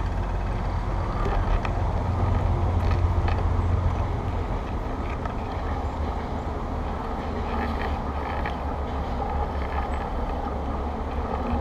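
Wind rushing over the microphone of a handlebar-facing camera on a moving bicycle: a steady low rumble, with a few faint clicks and rattles from the bike.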